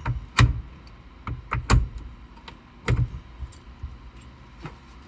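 Irregular sharp clicks and clinks of metal parts and tools being handled while fitting a steering-wheel quick-release hub, with three louder knocks about half a second, a second and three-quarters and three seconds in.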